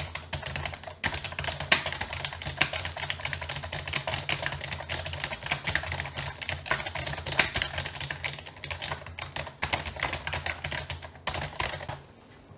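Fast, irregular typing on a computer keyboard: a dense run of key clicks that stops near the end.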